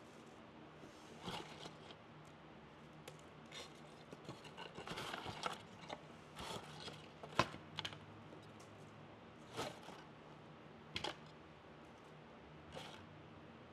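Faint rustling and light clicking of evergreen sprigs being picked up, bundled and laid down on paper, in short scattered bursts, with one sharper click about seven seconds in.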